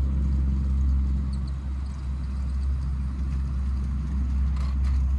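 G scale garden train running on the outdoor track, a steady low rumble with a few faint clicks near the end.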